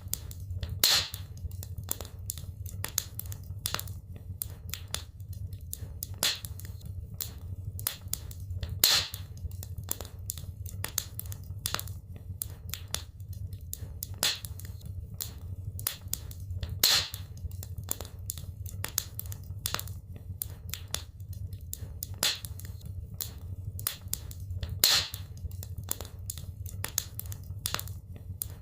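Wood fire crackling in a fireplace: a dense run of sharp snaps and pops, with a louder pop about every eight seconds, over a low steady rumble.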